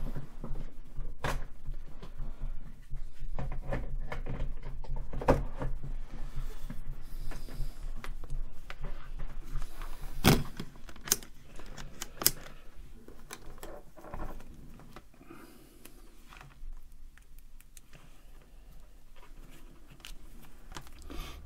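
Multimeter and test leads being handled on a wooden bench: scattered clicks and knocks with rustling, the loudest knock about ten seconds in as the meter is set down, then softer clicks and fumbling.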